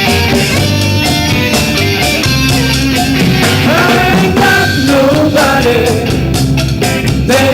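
Live rock band playing, with drum kit and guitar keeping a steady beat and a gliding melody line coming in about halfway through.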